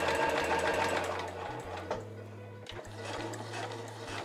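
Domestic electric sewing machine running, its needle stitching a straight seam through fabric, louder for the first second and a half and then quieter; soft background music underneath.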